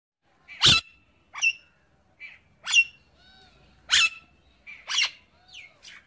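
Alexandrine parakeet calling: five loud, sharp screeches about a second apart, with fainter, softer calls between them.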